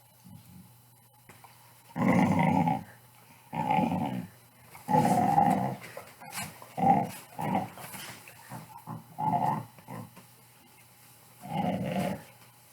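Pit bull's play growls: a string of about seven short growls, each under a second long, with pauses between them. The growling is playful, not aggressive.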